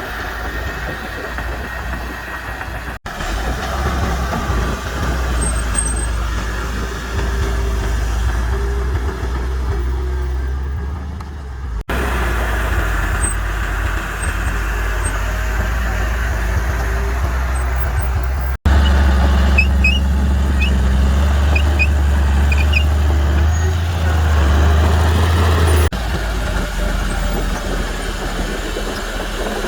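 Heavy diesel engines of a bulldozer and dump truck running with a steady low drone. The sound cuts abruptly between clips several times and is loudest in the stretch after the third cut.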